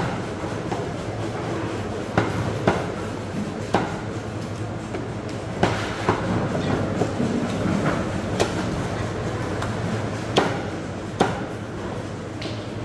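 Sharp, irregular chops of a knife cutting up a stingray, one every second or two, over a steady low hum.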